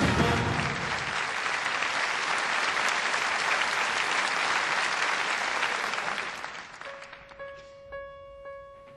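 Theatre audience applauding after a musical number; the applause fades away over the last few seconds. Near the end, single keyboard notes begin to sound, spaced about half a second apart.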